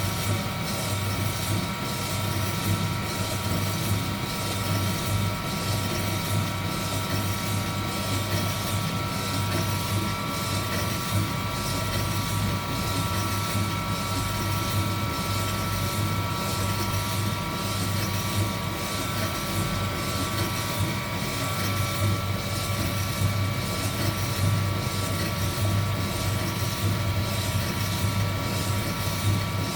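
Heat gun blowing steadily over coffee beans being roasted: a constant rush of hot air with a low hum and a steady motor whine.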